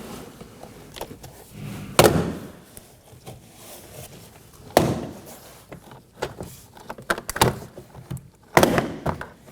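Plastic trim clips of a Toyota Corolla rear door panel popping loose one by one as the panel is pried away from the door: about four sharp pops, with the panel's plastic rustling between them.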